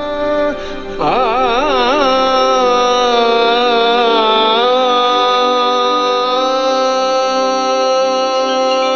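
Hindustani classical vocal song played through a Portronics SoundPot Bluetooth speaker: about a second in, a voice comes in and holds one long note with vibrato over a steady drone.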